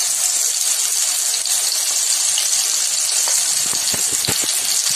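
Chopped onion, tomato and ginger-garlic paste sizzling in hot mustard oil in an iron kadai: a steady frying hiss, with a few light ticks near the end.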